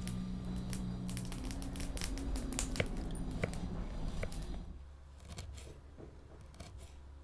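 Kitchen knife slicing garlic cloves against a wooden cutting board: a quick run of small taps and clicks, with a low steady hum underneath. About four and a half seconds in the hum stops and the cutting turns to a few softer taps.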